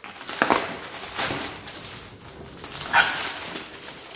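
Grey plastic mailer bag crinkling and rustling as it is handled and torn open by hand, in irregular crackly strokes with a few sharper crackles.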